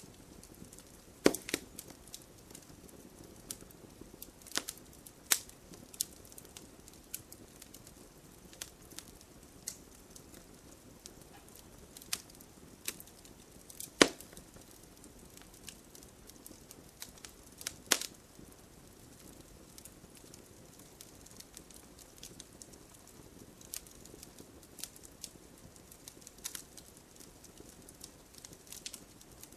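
Wood campfire crackling: irregular sharp pops and snaps over a faint low hiss, with the loudest pops about a second in, near the middle, and about 18 seconds in.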